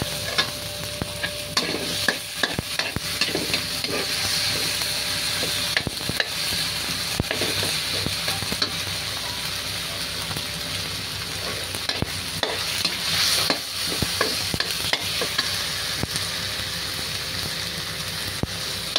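Sliced tomatoes and onions sizzling in hot oil in a wok, with a spatula stirring and scraping across the pan and making frequent short clicks and taps against it.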